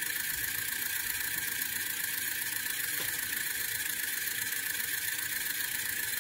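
Small N20 DC gear motor spinning the magnet rotor through a universal coupling at a high, steady speed: a steady high-pitched whir.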